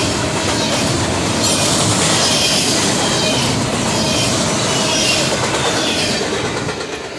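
A fast intermodal freight train's cars passing at speed: a loud, steady rush of wheel and rail noise with faint, brief high squeals, easing off near the end.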